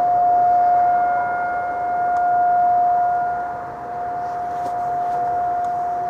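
Distant Federal Signal STL-10 outdoor warning siren sounding one steady tone, swelling and fading about every two and a half seconds as its rotating head sweeps past.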